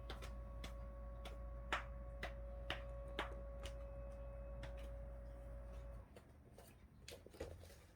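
Light plastic clicks and taps of marbles running through a GraviTrax marble run, coming about twice a second at first and then scattered, over a steady electrical hum that cuts off about six seconds in.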